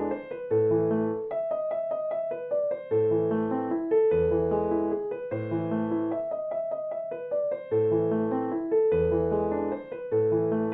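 Background music on piano: a gentle repeating chord pattern with a low bass note about every two and a half seconds.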